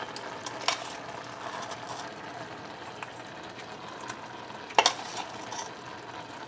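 Pot of tamarind sauce simmering with a steady hiss while chopped seasonings are added and stirred in, a few light clicks of a spoon against the pot, the loudest about five seconds in.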